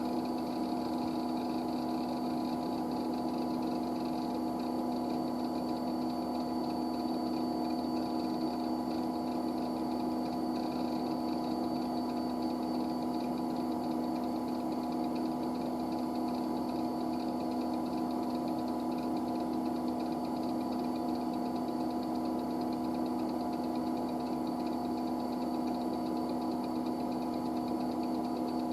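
IBM 9535 machine running: a steady mechanical hum with a faint high whine above it, holding constant throughout.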